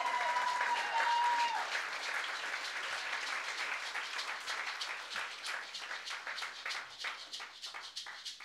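Audience applauding, with a high held cheer over the first second and a half; the clapping thins out toward the end.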